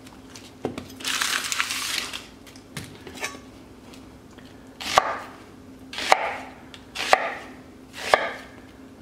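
Chef's knife slicing through a peeled onion into a wooden cutting board, one cut about every second in the second half. Early on there is a brief papery rustle of dry onion skin being peeled off.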